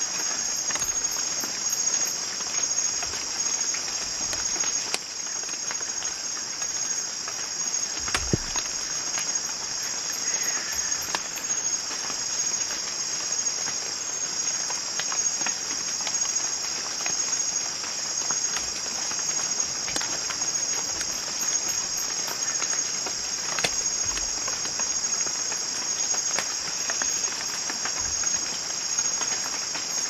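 Steady, high-pitched insect chorus of the rainforest, a continuous shrill trilling, with a few scattered sharp clicks and taps.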